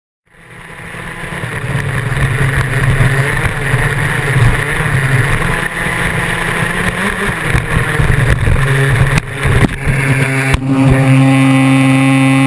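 Radio-controlled off-road buggy's motor running, picked up close by a camera mounted on the car, fading in from silence just after the start. It holds a steady hum that settles onto an even pitch in the last few seconds, with a few sharp knocks as the car bounces over rough ground.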